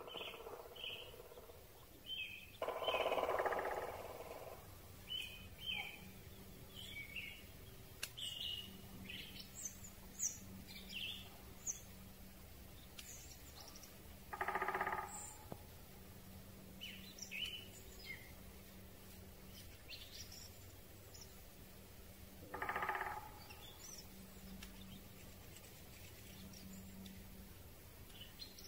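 Great spotted woodpecker drumming on a tree in three bursts: a longer one a few seconds in, then two short rolls about the middle and near the end. Scattered short chirps of small birds come in between, over a faint steady hiss from audio sharpening.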